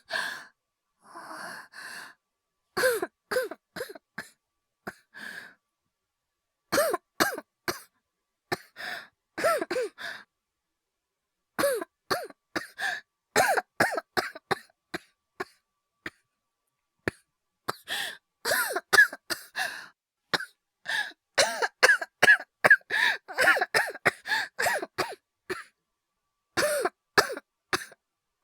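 A person coughing in repeated fits, acted rather than from real illness: short hacking coughs in clusters with pauses between, a drawn breath about a second in, and the coughs coming faster and closer together through the last third.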